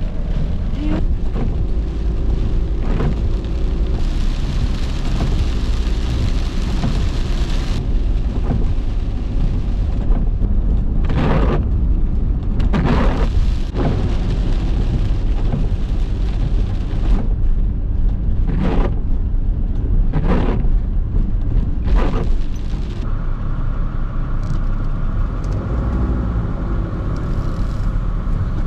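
Dodge Sprinter van driving on a wet road, heard from inside the cabin: a steady low rumble of road and engine noise, with scattered short thumps.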